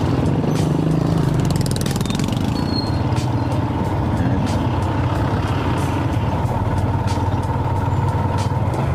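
Motorcycle engine running steadily at low speed in slow street traffic, its note changing briefly about two seconds in, with the engines of the tricycles and motorbikes around it.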